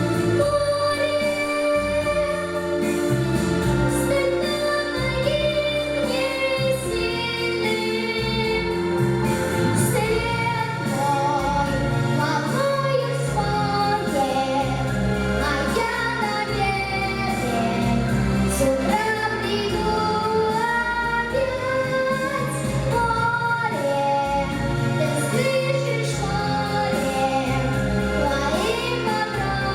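A boy singing a Russian pop ballad over an instrumental backing track, his voice carrying long, wavering held notes above a steady bass and chords.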